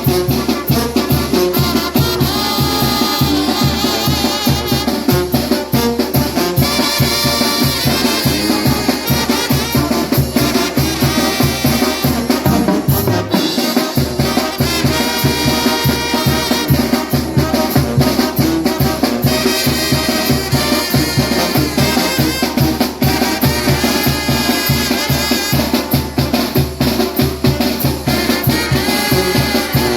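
Trumpet playing a lively melody over steady drums and percussion. The bass drops out briefly about thirteen seconds in.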